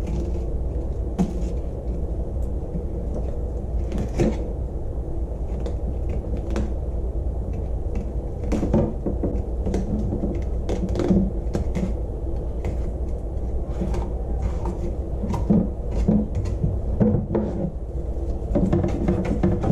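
Fillet knife cutting along a fish's backbone, with irregular sharp clicks and small knocks as the blade rubs over the bones and taps the board, over a steady low hum.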